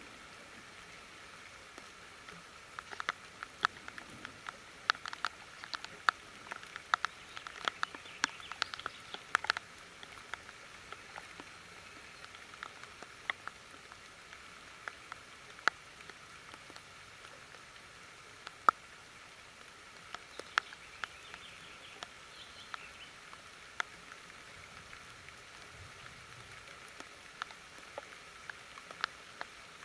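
Light rain: scattered, irregular drops tapping sharply over a steady soft hiss. The drops are thickest in roughly the first ten seconds and sparser after, with one louder single tap in the middle.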